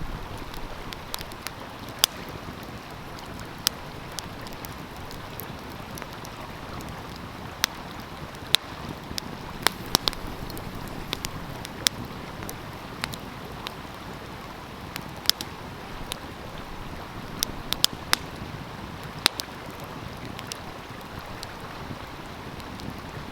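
Wood fire crackling, with sharp irregular pops, over the steady rush of a flowing stream.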